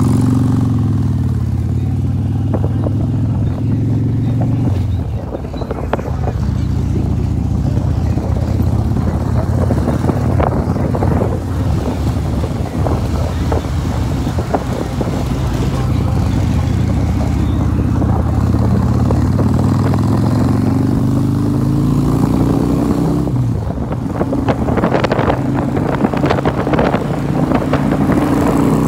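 Harley-Davidson V-twin motorcycle engine heard from the seat, running steadily at first, then under way with rushing wind noise. Its pitch climbs as it accelerates, drops sharply at a gear change about three-quarters of the way through, and climbs again.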